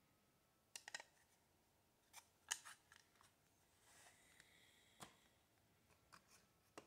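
Faint handling sounds from unboxing a derma roller: about eight scattered sharp clicks and snips, with a short light rustle around four seconds in.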